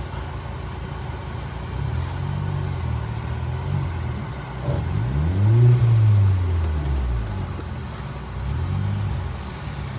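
Vehicle engine running steadily at low revs. About five seconds in it revs up briefly and falls back.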